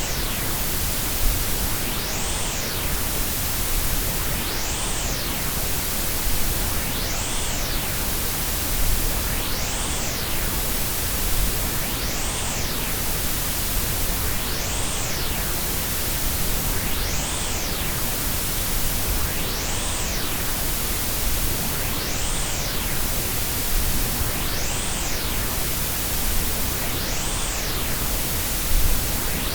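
Combined white, pink and Brownian noise: a steady, full hiss with a deep rumble underneath. A faint whooshing sweep rises and falls in the high end about every two and a half seconds.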